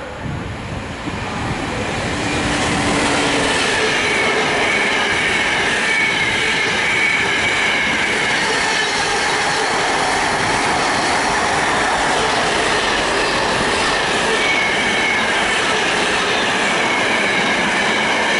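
Container freight train hauled by a Class 88 locomotive passing close through the station at speed. The noise builds over the first few seconds, then holds as a steady loud run of wagon wheels rattling over the rails, with a continuous high wheel squeal.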